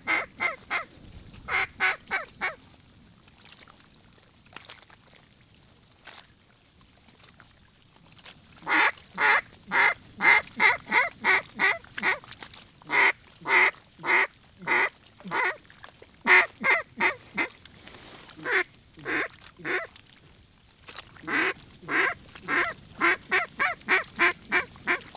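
Hand-blown duck call sounding runs of loud, rapid quacks, about three a second, in several sequences with pauses between them, calling to ducks circling overhead.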